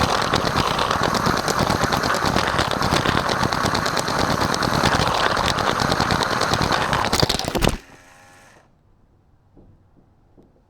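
Lego train running at high speed on plastic track, a loud dense clatter of wheels and rails. About three-quarters of the way through, a burst of knocks and the clatter stops abruptly as the train comes off the track. A brief fading motor whine and a few faint ticks follow.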